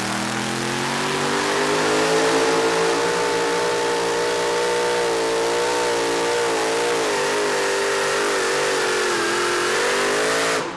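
Supercharged Arias hemi V8 of a super modified two-wheel-drive pulling truck at full throttle under load from the sled. It revs up over the first couple of seconds, then holds high with small wavers in pitch, and cuts off suddenly near the end. This is the power run of a pull that falls short of a full pull, with too much power too early on a slick track.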